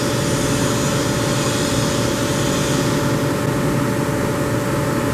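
Large industrial machine running: a steady mechanical hum with a few steady tones in it, unchanging throughout.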